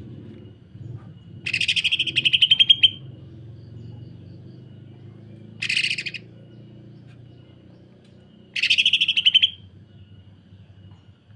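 Cucak ijo (green leafbird) giving harsh, rapid rattling calls like a sewing machine, in three bursts. The first comes about a second and a half in and lasts over a second, a short one follows near the middle, and another of about a second comes near the end.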